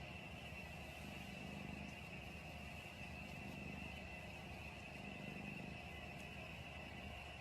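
Faint, steady background hum and hiss with a thin high whine, unchanging throughout.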